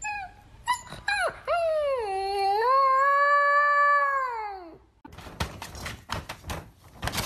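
A pet's pitched cries: a few short calls, then one long drawn-out call of about three seconds that dips in the middle and falls away at the end. It is followed by a run of clattering knocks.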